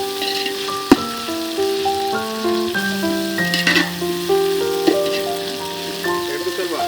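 Instrumental background music, a melody of held notes changing pitch, over food frying and sizzling in a pan, with a sharp click about a second in.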